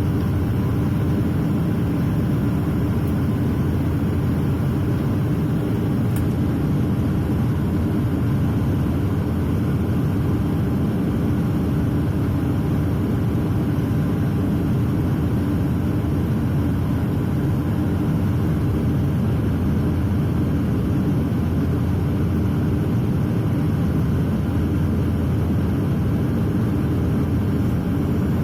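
Dash 8 Q400 turboprop cabin noise: the engines and propellers make a steady, loud drone with a low hum under it, unchanging throughout.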